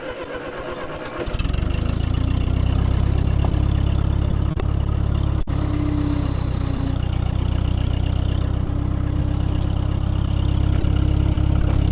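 Ditch Witch R65 trencher engine cranked over and catching about a second in, then running loud and steady.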